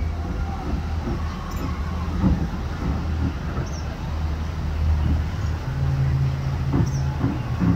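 A steady low motor-like hum, with a higher hum joining for about a second near the end and a few faint high chirps now and then.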